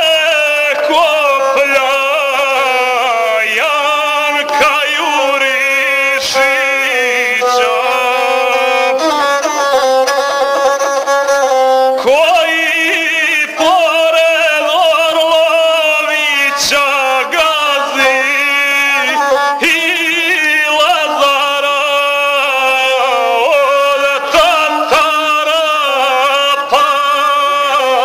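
Gusle, the single-string bowed folk fiddle, accompanying a man singing an epic song. The voice wavers and ornaments its pitch over a steady held tone from the gusle.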